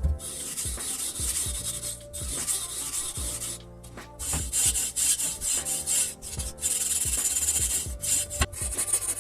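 Abrasive hand rubbing on a bicycle part in repeated strokes, each lasting about a second with short breaks between them, over background music.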